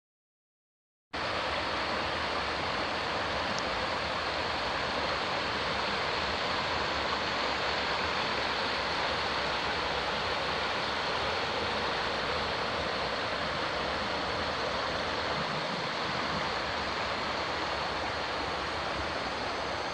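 Shallow stream flowing over a pebbly bed: a steady rush of running water that starts suddenly about a second in.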